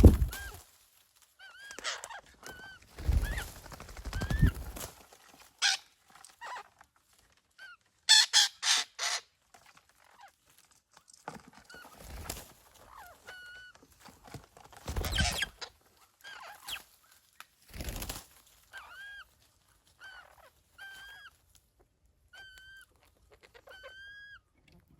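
A bird calling again and again in short, slightly arched calls, about one a second toward the end. A few loud thumps come through as well, with a rapid rattling burst about eight seconds in.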